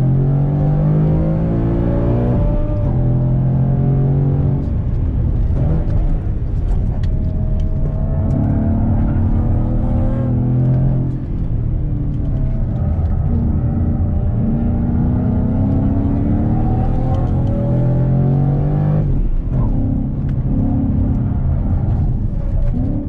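Car engine heard from inside the cabin at track pace, the revs climbing under acceleration and dropping away sharply several times, about every two to five seconds.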